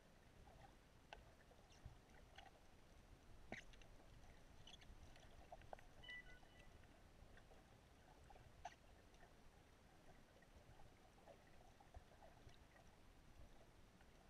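Near silence: faint underwater ambience, a low hiss with sparse, scattered soft clicks.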